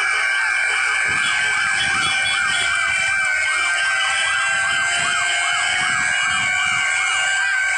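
Several fire-truck sirens sounding together: one sweeping rapidly up and down a few times a second over others holding steady tones. A low rumble joins about a second in.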